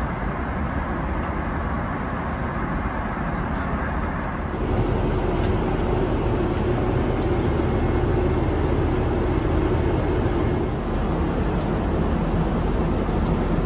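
Steady jet-engine and airflow noise of a Boeing 777-200 heard inside the passenger cabin. It gets louder suddenly about four and a half seconds in, with a steady hum added.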